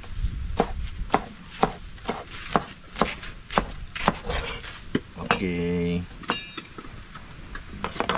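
Kitchen knife chopping vegetables on a cutting board, sharp even strokes about two a second. A brief voice-like sound cuts in about five seconds in.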